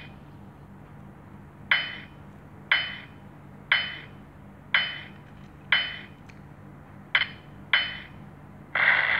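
Countdown-timer sound effect from a presentation slide: a short pitched tick about once a second. Near the end, as the count reaches zero, a louder, noisier time-up sound begins.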